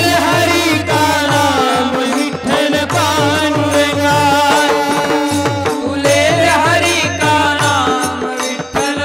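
Devotional kirtan bhajan: a voice singing a wavering melodic line over held drone tones and a quick, steady hand-drum beat.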